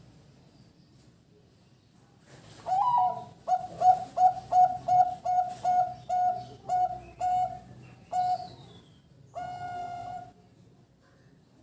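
Zebra dove (perkutut) song: a rising opening note, then about a dozen short clipped coos on one pitch at roughly three a second, ending in one long held coo.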